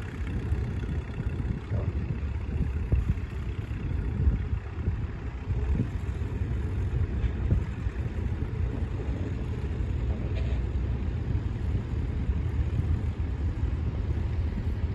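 Low, steady rumble of tractor engines working across the field, with wind buffeting the microphone.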